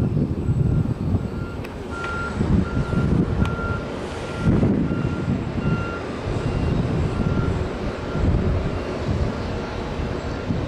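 A vehicle's reversing alarm beeping steadily, about one beep every 0.6 seconds, over an uneven low rumble of vehicle and engine noise.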